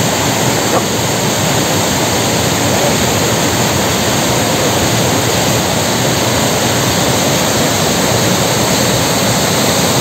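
Waterfall rushing close by: fast, churning water pouring over rock ledges, a loud, steady rush of water.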